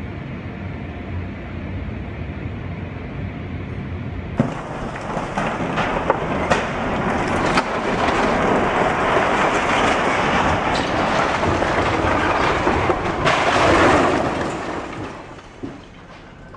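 A low steady hum, then from about four seconds in the rumble of a house collapsing: falling masonry and roof crashing down, with several sharp cracks, growing loudest near the end before dying away.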